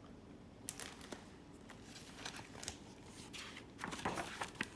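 Paper pages of a picture book being handled and turned: soft rustles and scattered small clicks, busiest near the end.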